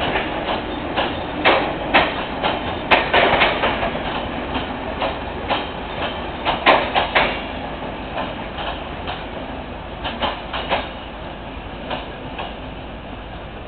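Passenger coaches rolling out of the station, their wheels clacking in irregular knocks over rail joints and points above a steady rumble. The sound fades as the train draws away.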